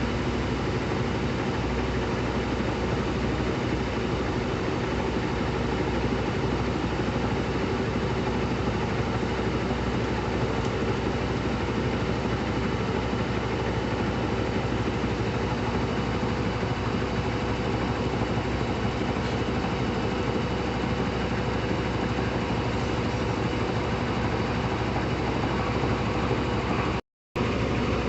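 Brastemp Intelligent 7 kg washing machine (BWQ24B) running with a steady mechanical hum. The sound cuts out for a split second near the end.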